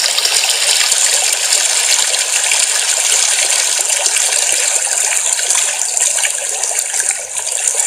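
Small waterfall cascading over mossy rocks into a stream: a steady rush of splashing water.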